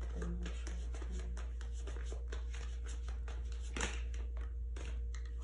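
A deck of romance oracle cards being shuffled by hand before a card is drawn: a quick run of small card clicks and flicks, with one louder snap nearly four seconds in, over a steady low hum.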